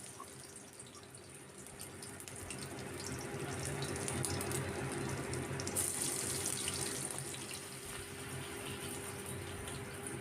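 Battered shrimp-leg pakoras deep-frying in hot oil in a kadai: a steady sizzle with fine crackles, growing louder a couple of seconds in and easing off near the end.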